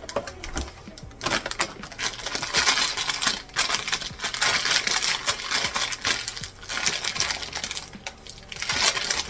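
Packaging crinkling and rustling while a blind-box figure is unwrapped by hand, with many small clicks and taps.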